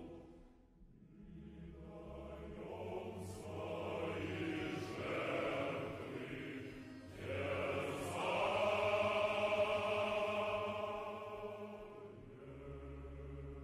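Background music: a choir singing slow, long-held chords over a low sustained bass note, swelling about halfway through and fading near the end.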